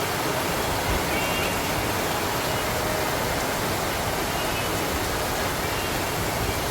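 Heavy rain pouring down, a steady even hiss of rainfall and running water with no let-up.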